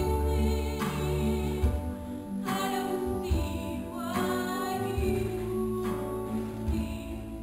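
Live stage-musical song: a woman singing a melody over guitar accompaniment with sustained low notes beneath.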